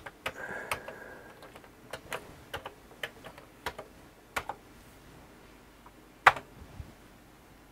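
Keys clacking on a Commodore 64 keyboard as a short command is typed, a dozen or so keystrokes over the first few seconds. About six seconds in comes one louder keystroke, the RETURN key that sends the disk directory load command.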